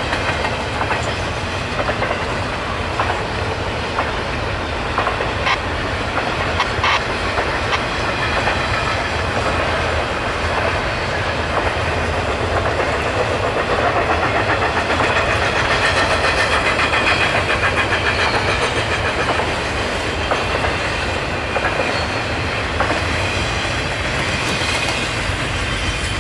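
Norfolk Southern freight train's cars rolling past: a steady rumble of steel wheels on rail with a clickety-clack over the rail joints, which gets stronger about halfway through.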